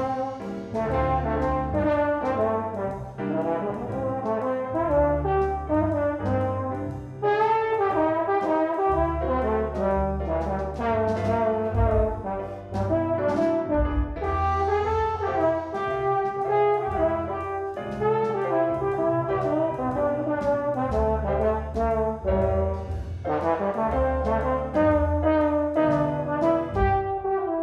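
Jazz trombone solo playing a fast, continuous run of notes over a recorded backing track with a steady bass line.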